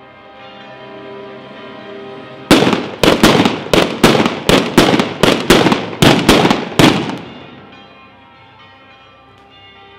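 Batteria alla bolognese: a chain of large firecrackers set out on the ground going off in quick succession, about a dozen loud bangs at roughly three a second, starting about two and a half seconds in and stopping near seven seconds. Bells ring steadily underneath, before and after the bangs.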